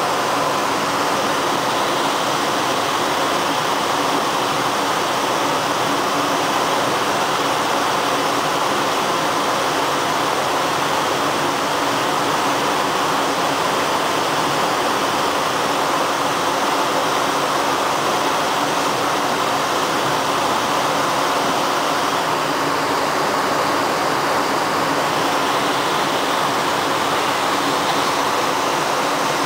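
Steady rushing of water as a Panama Canal lock chamber floods.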